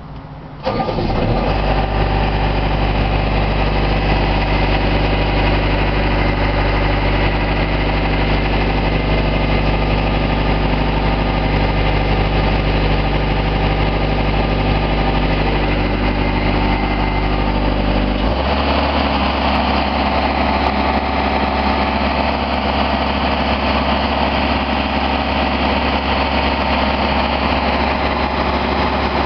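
Aerial work platform's engine starting about half a second in, then running steadily. About two-thirds of the way through its speed steps up to a higher steady pitch.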